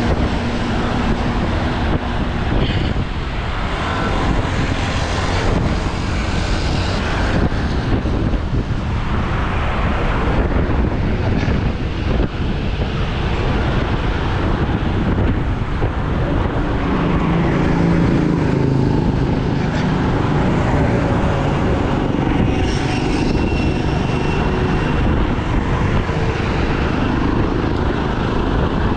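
Wind rushing over a GoPro's microphone on a road bike at about 40 km/h, a steady low rumble mixed with highway traffic noise. A deeper engine hum from a nearby vehicle swells for a few seconds just past the halfway point.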